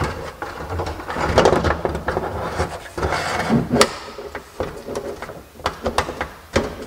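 Stereo head unit being pushed and slid into its metal mounting sleeve in a tractor cab's roof panel: scraping and rubbing with a run of sharp clicks and knocks, the sharpest about four seconds in, as the unit's retaining tabs catch.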